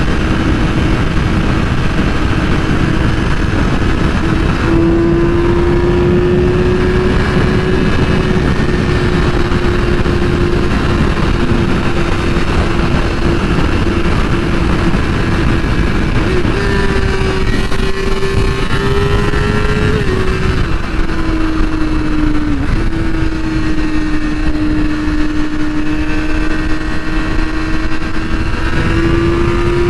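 2008 Yamaha R6's inline-four engine running at a steady cruising speed while riding, its pitch drifting slightly, with a brief rise and then a dip about two-thirds through and a rise near the end. Steady wind and road rush lies underneath.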